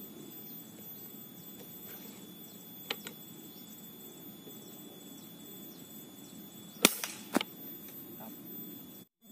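Air rifle firing a single shot: one sharp crack about seven seconds in, followed about half a second later by a smaller sharp crack. A fainter click comes about three seconds in.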